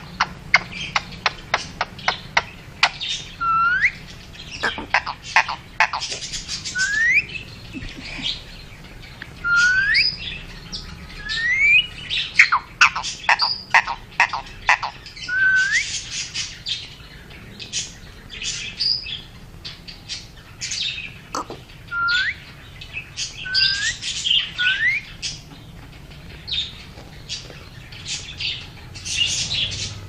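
Indian ringneck parakeet calling close up: bouts of rapid clicking chatter, short whistles that rise in pitch, and harsh scratchy squawks, with a few brief pauses between bouts.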